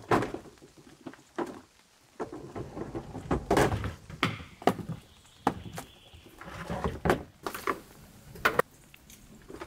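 A hard plastic storage box being handled and lifted out of a truck-bed drawer: a string of knocks and clunks of hard plastic, with scraping and rustling in between. The sharpest knock comes just at the start.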